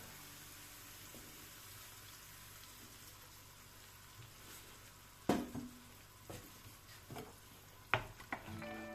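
Tomato passata and onions sizzling steadily in a frying pan. A sharp knock comes a little past halfway, then a few lighter clicks of a wooden spoon against the pan as stirring begins near the end.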